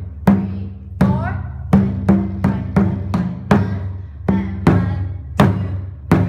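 Odaiko, a large Japanese taiko drum, struck with wooden bachi: about a dozen deep hits at an uneven practice rhythm, some in quick pairs, each one ringing on into the next.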